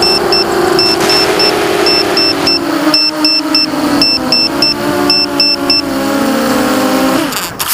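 KingKong 260 FPV quadcopter's brushless motors and propellers whining, the pitch sagging and splitting into several tones as the LiPo battery goes flat, while a low-battery alarm beeps in quick sets of three about once a second. Near the end the motor sound falls away and cuts out as the power fails.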